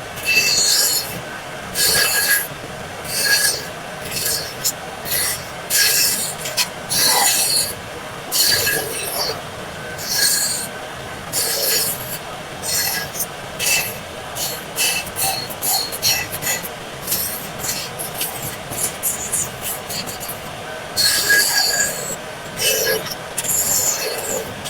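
A hand tool scraping or rasping across wood in repeated, uneven strokes, with a faint squeal in some strokes.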